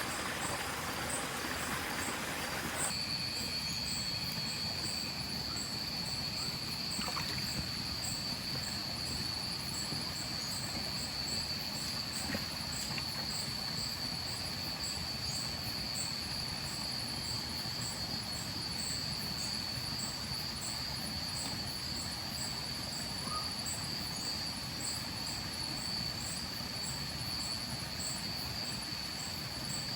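Night insects such as crickets trilling in one continuous high tone that sets in about three seconds in, with a faint higher ticking, over a steady rush of river water.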